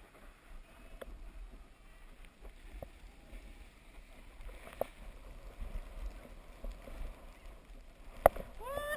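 Steady scraping and swishing of snow under the rider while sliding down a packed ski run, with low wind rumble on the microphone. A single sharp knock about eight seconds in.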